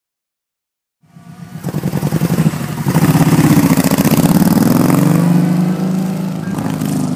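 A large touring motorcycle's engine under throttle as it rides off, with a rapid pulsing exhaust note. It cuts in abruptly about a second in, builds over the next two seconds, then runs loud and steady.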